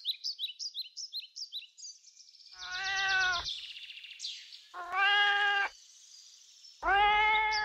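A cat meowing three times, each a steady call of just under a second, about two seconds apart. Rapid, high, bird-like chirping fills the first two seconds.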